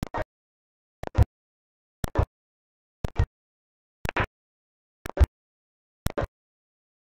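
A short burst of sound repeating exactly once a second, each a click followed by a dull thud, with dead silence between: a stuttering audio feed in which only fragments of sound get through.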